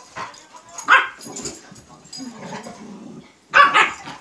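Puppies barking during play: a sharp bark about a second in, a smaller one just after, and a louder double bark near the end.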